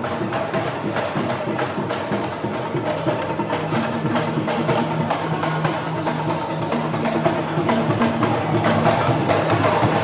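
Music with busy percussion: rapid knocking strokes over low held notes.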